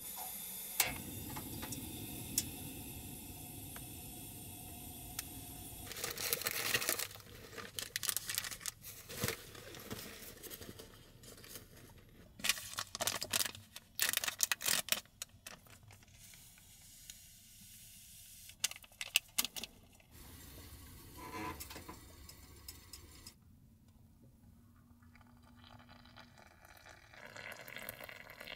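Food being prepared in a small space: a steady hiss for about the first six seconds, then scattered clicks, clatter and rustling of packaging.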